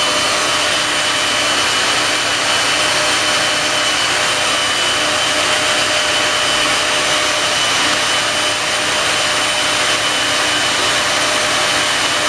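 Handheld blow dryer running on its high setting: a steady rush of air with a thin high whine, unbroken throughout.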